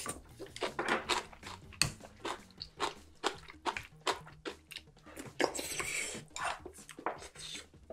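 Close-miked eating sounds of a man chewing and slurping hot, spicy ground-loach soup, with many wet mouth clicks. There is a breathy stretch of blowing or slurping about five and a half seconds in.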